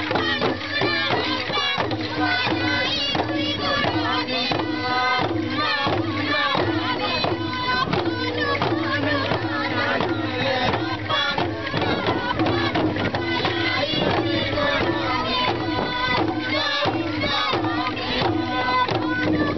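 Many kundu hourglass hand drums beating together in a steady, even rhythm, with a group of voices singing over the drumming.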